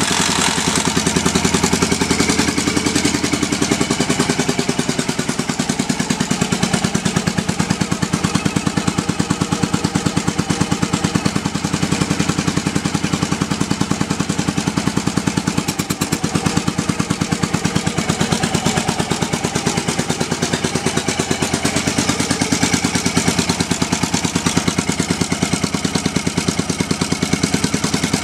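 1983 Yamaha XV750 Virago's air-cooled V-twin engine running steadily, with a rapid, even beat of firing pulses, soon after being brought back to life after years of sitting. Its carburettors need a thorough rebuild.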